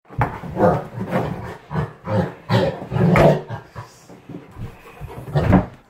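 A dog vocalising in a run of about a dozen short growly grumbles and moans, the kind of 'talking back' a dog does when it protests.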